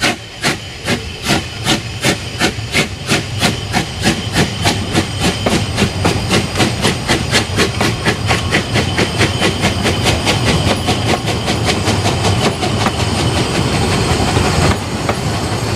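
Narrow-gauge steam locomotive pulling away with its train: sharp, even exhaust chuffs with hissing steam, about three a second at first and quickening steadily as the train gathers speed, over a low rumble of the running train.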